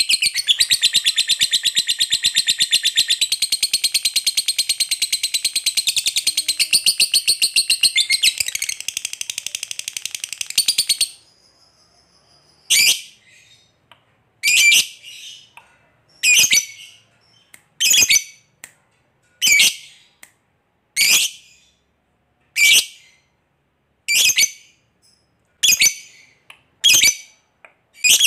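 Lovebird 'ngekek': a long, unbroken, very rapid high chattering trill for about eleven seconds, which then stops. After it come single sharp high calls, about one every second and a half.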